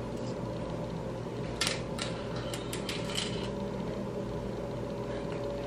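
A few light metallic clicks and clinks as silver jewellery is handled and fitted on a customer's hand, clustered from about a second and a half in to the middle, over a steady background hum.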